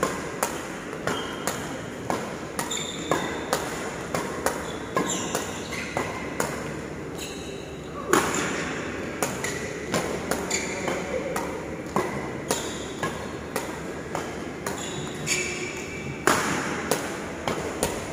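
Badminton racket hitting shuttlecocks in a fast feeding drill: a string of sharp pops about once or twice a second, with two louder hits about eight seconds in and near the end. Short squeaks of court shoes sound between the strokes.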